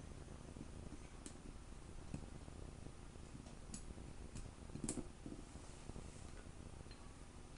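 A few faint metal clicks and taps as the small parts of a Walther P99 QA slide, the striker and decocking lever, are worked together by hand. The loudest click comes about five seconds in.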